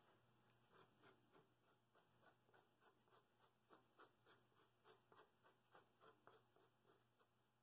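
Faint scratching of a fingertip rubbed back and forth on the inside edge of a poplar bowl ring, about three strokes a second, stopping near the end.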